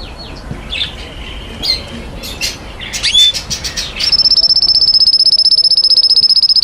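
Cage birds chirping and squawking. About four seconds in, a loud, rapid, very even high trill starts and keeps going.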